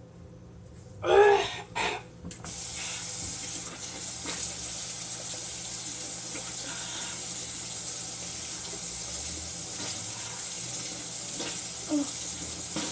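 Two loud, short coughs about a second in, from choking on a spoonful of ground cinnamon, then a kitchen tap running steadily.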